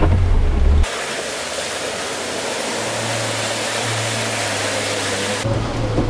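Off-road vehicle engine running with a low rumble, cut off abruptly about a second in by a steady rushing hiss with a faint engine hum beneath it; the low engine rumble returns abruptly near the end, with a few clicks.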